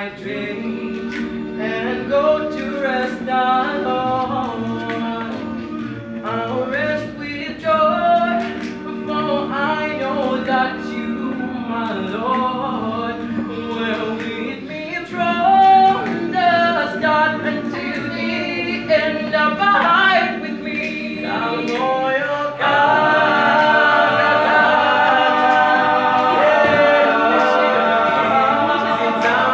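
Male a cappella group singing in harmony with no instruments, a moving melody over a steady low bass part. About 23 seconds in the voices swell into a louder, fuller sustained chord.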